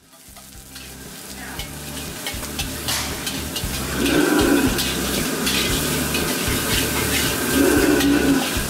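Diced meat sizzling in a carbon-steel wok while a metal wok ladle stirs it, its edge scraping and clicking sharply against the pan, over a steady low rumble. The sound fades in over the first few seconds.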